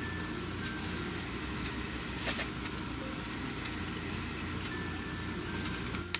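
Domestic cat purring steadily while being stroked: a low, fluttering rumble. A single sharp click about two seconds in.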